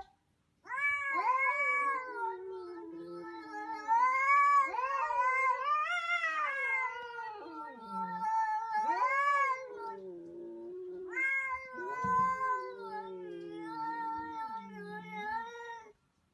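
Domestic cats yowling at each other in a face-off, long drawn-out wavering calls that rise and fall in pitch, with a short break about ten seconds in.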